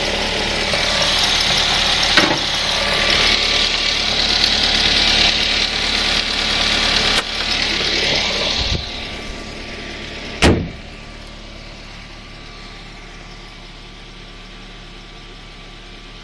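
Ford Focus 1.8-litre engine running with its drive belt whistling loudly. The whistle fades out about nine seconds in, leaving a quieter steady idle. A sharp knock comes about ten and a half seconds in.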